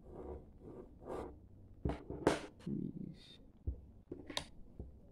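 Pencil scratching short strokes on drawing paper along a plastic set square, with a few light knocks as the set square and ruler are handled.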